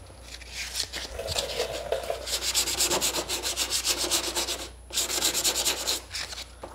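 Hand sanding with sandpaper in the door-handle recess of a car's rear door, scuffing the finish as paint prep. Quick back-and-forth rubbing strokes, about five a second, with a brief pause about two-thirds through.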